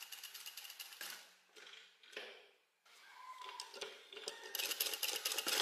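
Sewing machine stitching in short runs, a rapid even clatter of the needle mechanism. One run stops about a second in, and another builds and is loudest near the end.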